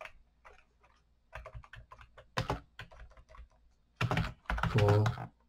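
Typing on a computer keyboard: irregular runs of keystrokes, with a louder, quicker flurry about four seconds in.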